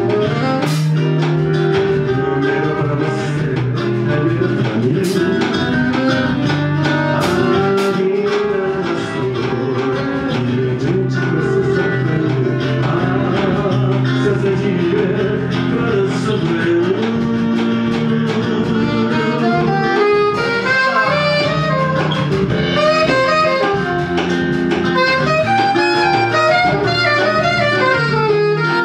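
Live jazz-blues band playing: guitar, violin, alto saxophone and drums. In the last third a wavering melody line comes forward while the violin rests.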